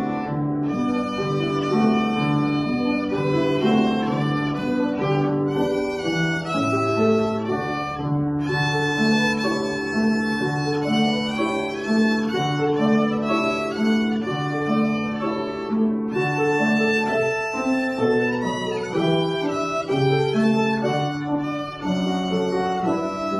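A young child playing a slow lullaby melody on a small violin, mostly long held bowed notes, with a grand piano accompanying in a steady, rocking pattern of low notes.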